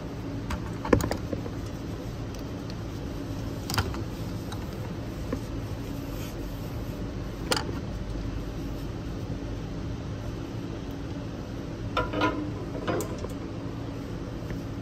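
Steady workshop machine hum with a few sharp metallic clicks: one loud click about a second in, single clicks near four and near seven and a half seconds, and a short run of clinks near the end.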